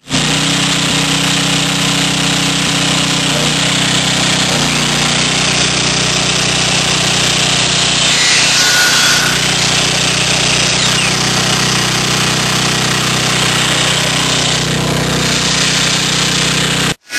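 A small engine runs steadily throughout, and a power miter saw cuts through a wooden board about eight seconds in, its sound harsher and brighter for a second or so.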